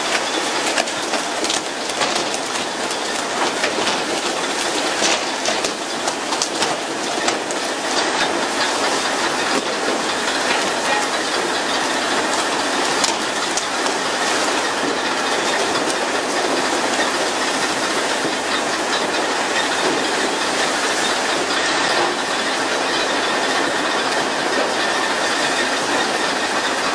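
Steady hiss of seawater spraying from a pole-and-line tuna boat's sprinkler jets onto the churning sea along the hull, with many short slaps and clicks scattered through it.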